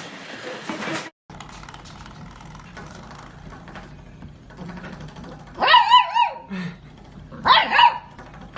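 A dog giving two short, high-pitched, wavering barks about a second and a half apart, the first just past the middle and the second near the end.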